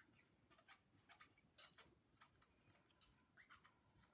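Marker pen writing on paper: faint, irregular short squeaks and scratches as the tip strokes out letters.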